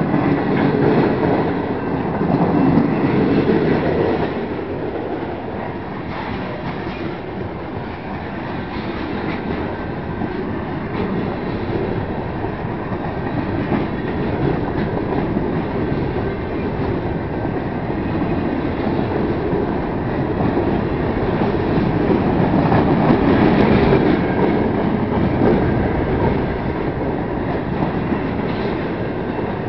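CSX freight train's boxcars and flatcars rolling past, steel wheels clattering and rumbling on the rails in a steady stream of noise, a little louder in the first few seconds and again about two-thirds through.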